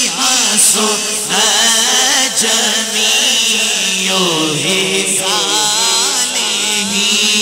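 A man reciting a naat, a devotional Islamic poem, as a melodic chant into a microphone, with long held notes that slide up and down in pitch.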